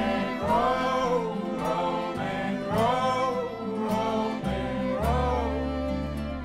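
Live acoustic folk band playing: bowed fiddle, acoustic guitars, cello and double bass, with voices singing a melody that rises and falls in arching phrases about once a second over held low bass notes.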